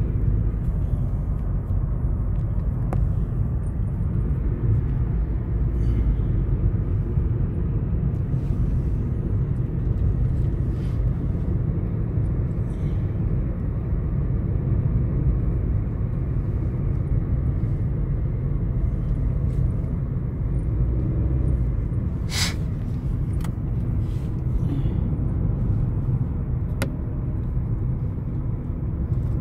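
Steady low road and engine rumble of a moving car, heard from inside the car. A single sharp click about three-quarters of the way through, and a fainter one near the end.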